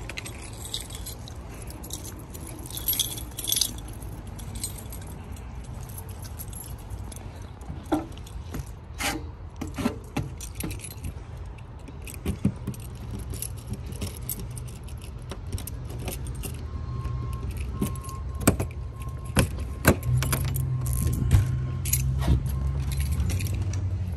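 A ring of keys jangling, with a run of sharp clicks and knocks as a travel trailer's entry door is unlocked and opened, the strongest knocks coming about three quarters of the way through.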